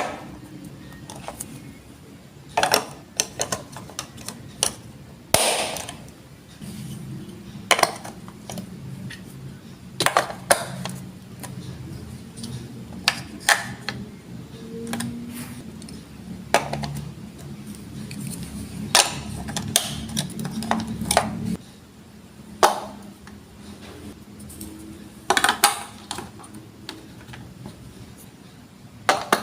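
Plastic Lego Duplo bricks being handled and pressed together: sharp clicks every second or two, with a low rumble for about fifteen seconds in the middle.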